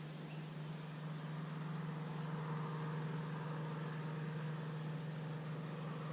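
A steady low engine hum from a motor running at constant speed, growing slightly louder over the first two seconds and then holding level.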